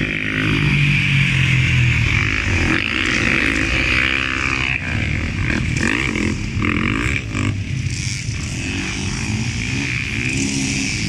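Several motocross bikes' engines revving up and down as they ride a dirt track, the pitch repeatedly rising and falling through corners and jumps.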